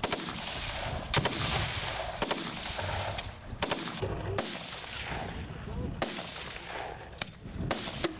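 Repeated gunshots, some single and some in quick pairs, roughly one every second, each trailing a short echo.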